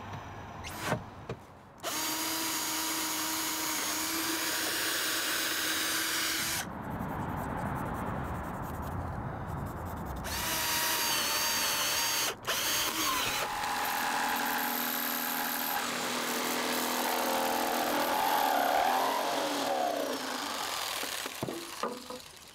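Power tools working a plywood drawer face: a corded jigsaw cutting out a rectangular opening, in several separate runs of a few seconds each with short breaks, the pitch shifting as the cut goes.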